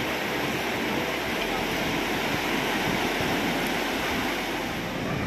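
Sea surf breaking on a sandy beach: a steady rush of large waves.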